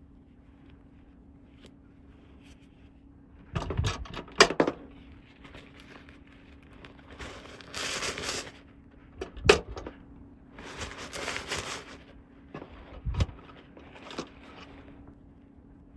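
Toy packaging and plastic toy parts being handled: a few sharp plastic clicks and taps, and two stretches of rustling, over a faint steady hum.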